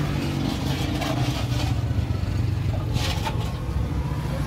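A motor vehicle engine running steadily, with a few short clinks over it.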